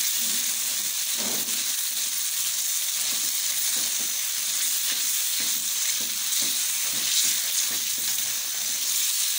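Mashed tomatoes sizzling in an oiled frying pan, being cooked down to lose their raw taste, with a silicone spatula stirring and scraping across the pan in repeated strokes over a steady hiss.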